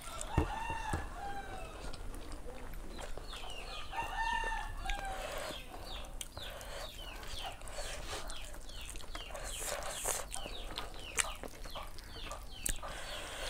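A rooster crows twice, each crow about a second long, near the start and again about four seconds in, followed by a long run of short falling chirps.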